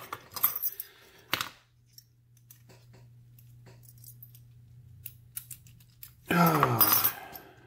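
A key on a jangling key ring being pushed into a freshly reassembled brass euro profile cylinder lock and turned, giving a string of small metallic clicks with a sharper click about a second and a half in. A short vocal sound comes near the end.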